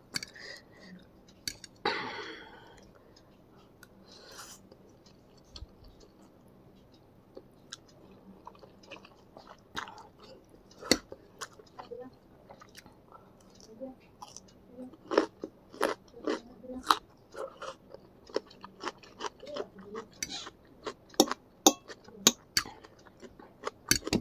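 Close-up mouth sounds of someone eating: wet chewing of instant noodles and crunching bites of raw cucumber, a string of short, sharp clicks and crunches that come thicker and louder in the second half.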